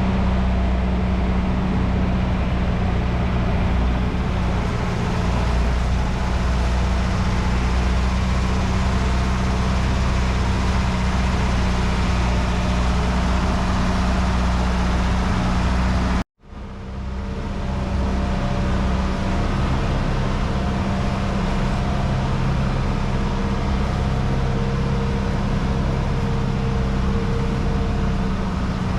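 A boat's engine running steadily under way, with a constant low hum and a rush of wind and water. It cuts out abruptly about halfway through and comes straight back at a similar steady pitch.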